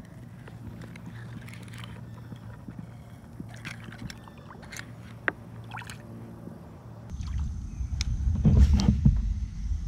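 Lake water sloshing and splashing around a catfish held at the surface in a fish-lip grip as it is released, with a few light knocks. About seven seconds in, a louder low rumble takes over.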